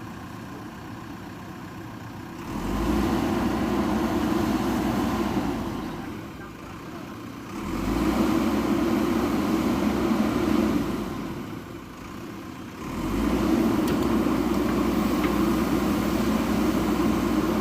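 JCB backhoe loader's diesel engine revving up three times, each for a few seconds, and dropping back toward idle between, as the machine works.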